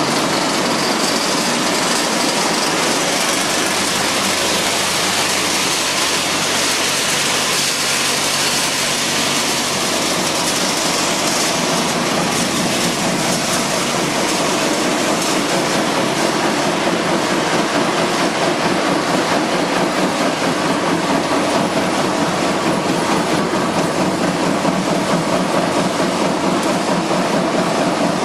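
Machinery of a pellet and briquette production line running continuously: a loud, steady mechanical clatter.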